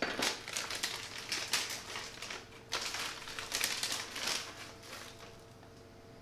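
Plastic bag of dry malt extract crinkling as it is handled and squeezed, a dense run of short crackles that thins out about four and a half seconds in.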